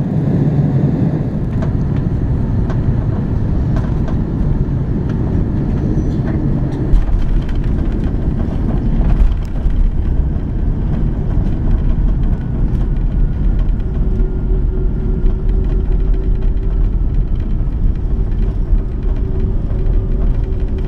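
Airbus A330-200 airliner heard from the cabin: a steady, loud low rumble. There are a couple of louder jolts and knocks about seven and nine seconds in, and a steady hum runs over the rumble in the second half.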